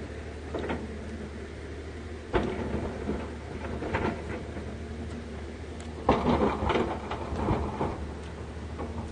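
A person eating: a spoon and chopsticks click and scrape against a plastic rice container and bowls, with chewing in between. The loudest is a cluster of clatter about six seconds in, over a steady low hum.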